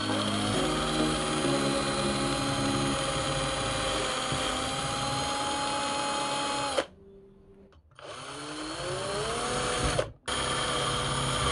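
Electric drill with a step drill bit boring through a plastic bottle cap: the motor whine rises as it spins up and runs steadily for nearly seven seconds, then stops. About a second later it spins up again with a rising whine, breaks off briefly, and runs once more.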